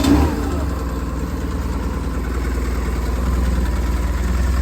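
2002 BMW R1150GS Adventure's air/oil-cooled boxer twin idling steadily just after a cold start, having caught a moment before with a brief flare; the idle grows slightly louder as it settles.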